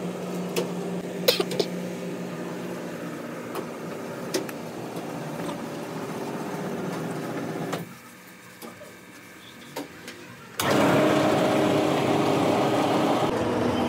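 Workshop machinery running with a steady hum and a few sharp clicks and knocks. It drops quieter for a couple of seconds, then a much louder, steady machine noise with a whining tone starts suddenly near the end, as press machinery comes on.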